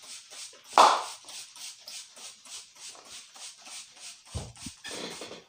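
Barber's hands working a customer's head and hair in a quick, even head-massage rhythm, about five strokes a second, with one much louder hit just under a second in.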